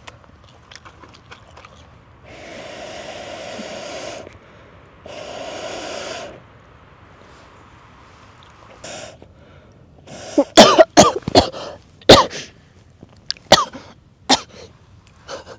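Two long blowing breaths, then a fit of loud coughing from choking on wood smoke.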